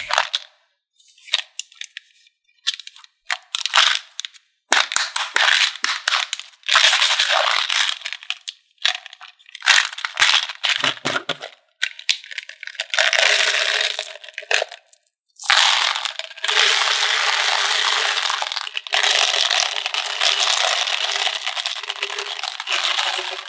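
Crunching and crackling of M&M's candy and makeup being mixed, in stretches of a few seconds with short gaps, becoming long dense runs in the second half.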